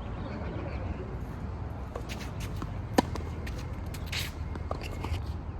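A tennis ball struck once about three seconds in: a single sharp, ringing knock. A short scuff of feet on the court follows about a second later, over a steady low rumble.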